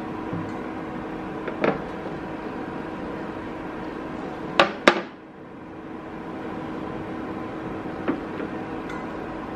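Square tamagoyaki pan knocking twice in quick succession on a glass electric cooktop about halfway through as it is lifted and tilted, with lighter taps near the start and near the end, over the cooktop's steady hum.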